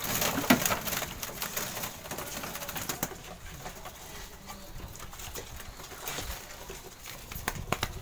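Zebra doves (perkutut) cooing in an aviary, with scattered sharp clicks and knocks, thickest in the first second and again near the end, as birds are caught from the wire-mesh cage.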